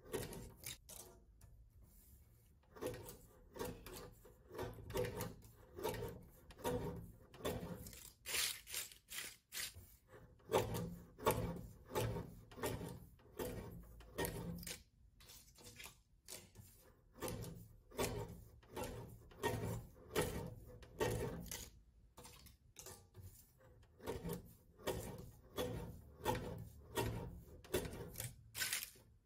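Irregular rubbing, scraping and light knocking from hands working with small objects on a tabletop, in short strokes that come and go.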